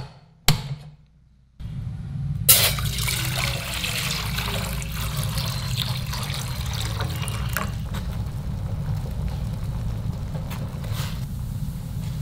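Two sharp clicks, then a gas stove burner running with a low steady rumble. About two and a half seconds in, water starts pouring into a stainless steel pot with a steady splashing that continues.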